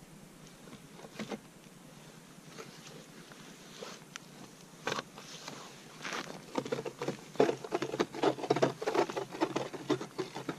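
Mora manual ice auger cutting into lake ice: the hand-turned blades scrape and crunch, sparse at first, then a dense, rapid grinding from about six seconds in.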